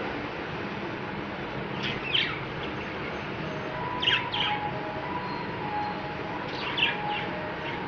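Budgerigars chirping in three short bursts of quick, falling, high-pitched chirps over a steady background noise.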